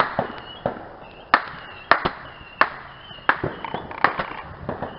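Roman candle firing, a sharp pop about every two-thirds of a second as each ball is shot out.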